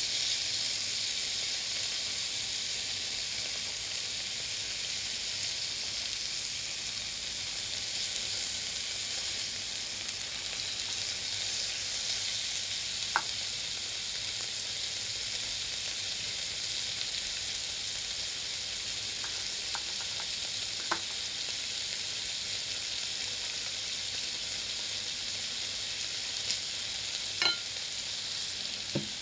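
Thin pork slices sizzling steadily on an electric grill pan's ribbed plate. A few light taps of chopsticks on the pan come around the middle and again near the end.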